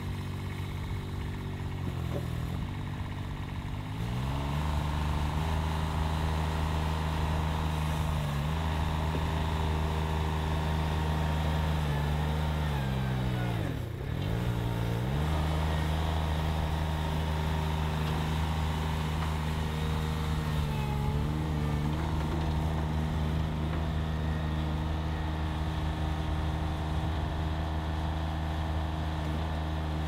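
Baumalight 620D mini skid steer engine running steadily at working throttle while the machine digs into a dirt pile to fill its bucket. The engine note dips sharply about fourteen seconds in, as the bucket works into the pile, and then recovers.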